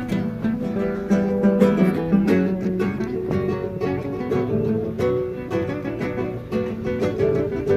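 Acoustic guitar played as a melody of plucked notes over lower bass notes, a new note every fraction of a second.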